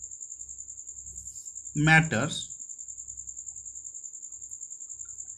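A cricket trilling: one steady, high-pitched trill with a fast, even pulse.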